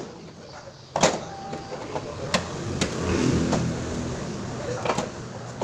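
Sharp clicks and knocks of refrigerator parts being handled and a cover being fitted, the loudest about a second in, with a short low whirr in the middle.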